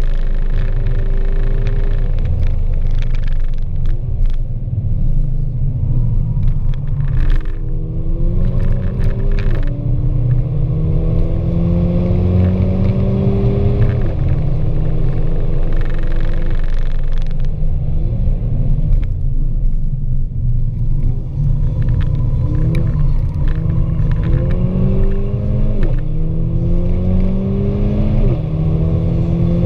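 Mercedes-AMG A45's turbocharged 2.0-litre four-cylinder heard inside the cabin under hard acceleration. The engine note climbs and drops sharply at each upshift, several times, with a lower, quieter stretch in the middle.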